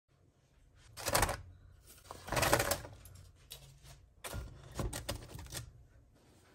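A bamboo steamer being handled on the stove, with its woven bamboo lid set on top. There are three bursts of light wooden knocking and rattling, the last a run of sharp clicks as the lid goes on.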